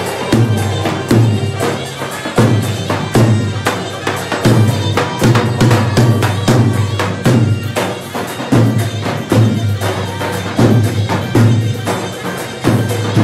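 Lebanese-style wedding entrance (zaffe) drumming: large tabl drums beating a steady heavy rhythm, with tambourine jingles and sharp strokes over it.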